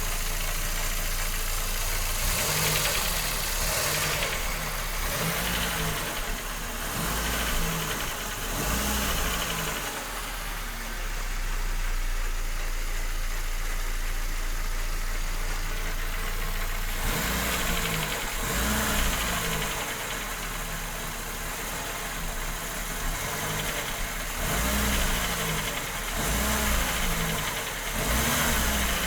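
Ford Fiesta 1.0 8V supercharged engine blipped repeatedly, each rev rising and falling back toward idle every couple of seconds, with a steady idle stretch in the middle before the blips resume. As the revs drop it makes a knocking noise that the owner likens to spark knock ('pino batendo').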